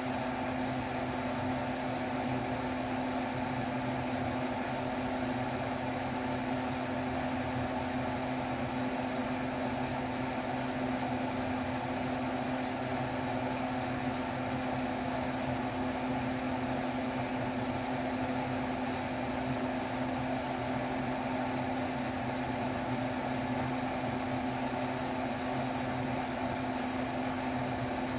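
Steady hum and whoosh of an electric kitchen fan running at constant speed, with an unchanging motor hum throughout.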